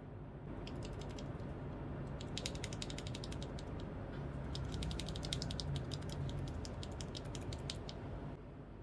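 Typing on an RK61 Pro mechanical keyboard fitted with stock Akko CS switches: a fast, steady run of key clicks and key bottoming-out that stops about eight seconds in.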